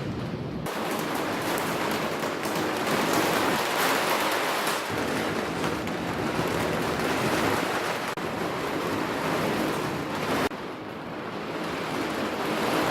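Heavy rain falling steadily in a thunderstorm, an even hiss that eases slightly about ten and a half seconds in.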